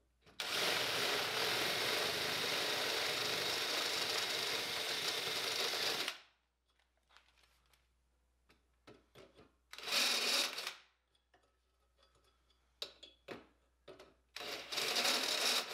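Cordless drill with a step drill bit boring through a metal brace: one steady run of about six seconds, then two shorter runs later on.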